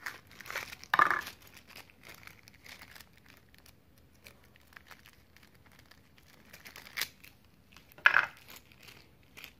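Thin plastic wrapping crinkling as a small drill chuck is unwrapped by hand, in short bursts about a second in and again around seven and eight seconds, with quiet handling in between.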